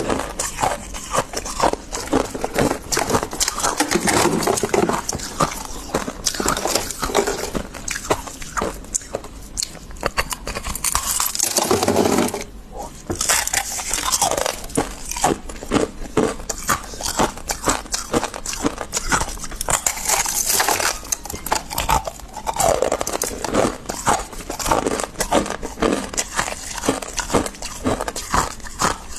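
Freezer frost being scraped loose and chewed: a dense, irregular run of crisp crunches and crackles.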